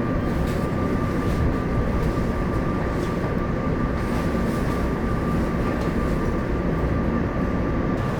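Passenger train running: a steady low rumble with a thin, steady whine above it.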